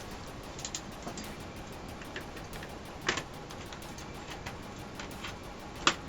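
Plastic clicks and creaks of a ThinkPad T30 laptop's plastic case being pried apart: a few faint ticks, a sharp click about three seconds in and a louder snap near the end.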